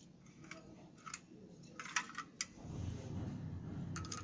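Sharp metal clicks and scraping as a butane canister is worked into the inlet of a portable gas stove, with a loud cluster of clicks about two seconds in and more near the end, and a low handling rumble in between.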